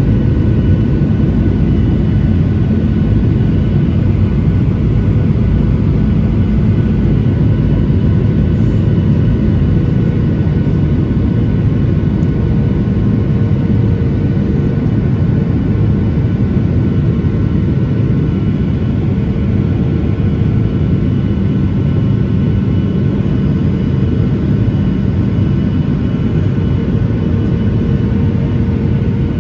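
Boeing 737-900ER in flight: a steady, loud rumble of its CFM56-7B jet engines and airflow, with several faint steady whining tones held over it and no rise or fall in level.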